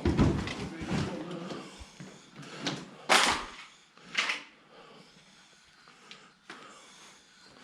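Objects being handled and moved: a few low knocks and bumps at the start, then short scraping scuffs about three and four seconds in, echoing in a small room.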